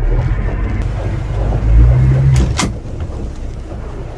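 Boat engine revving up as the throttle is pushed forward to get under way, loudest about halfway through, with two sharp clicks just after the rise; then the engine settles lower under wind and water noise.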